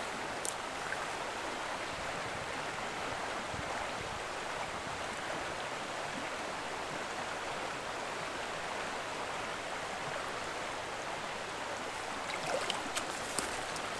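Shallow brook flowing steadily over stones, an even rush of water, with a few brief clicks near the end.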